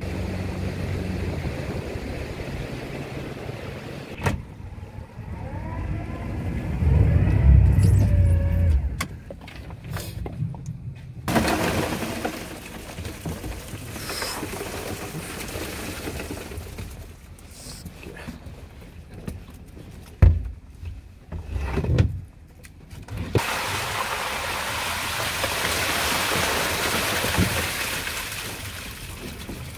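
A fishing boat's engine running, then plastic baskets knocking on the deck as live Hokkai shrimp are tipped into crates, with a couple of sharp knocks. Near the end, a long rush of water and shrimp poured from a plastic tub into a plastic basket.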